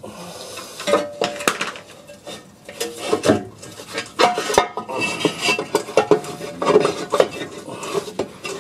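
Engine oil sump being prised and worked free from the bottom of the engine: irregular metallic knocks, scrapes and clanks, some with short ringing notes, as the sealant-bonded pan is levered loose and manoeuvred down.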